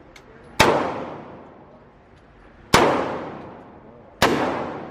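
Three gunshots from a firearm at a shooting range, the first about half a second in, then about two seconds and a second and a half apart, each followed by a long echoing decay.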